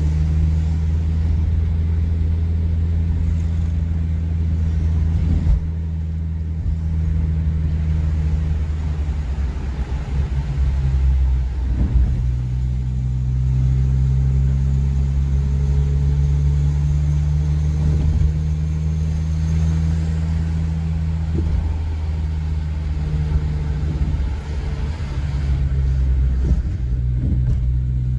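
A car's engine and tyres in motion: a steady low drone that shifts in pitch several times as the car changes speed, with a few short knocks.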